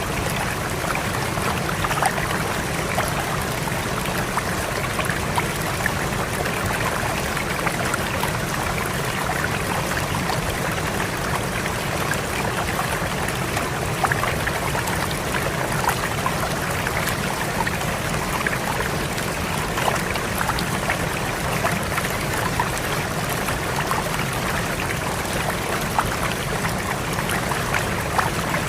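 Fast-flowing river rushing steadily, with small splashes throughout.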